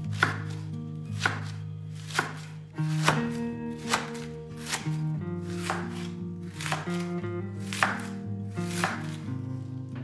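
A knife shredding a head of white cabbage on a wooden cutting board: crisp cuts about once a second, with background music underneath.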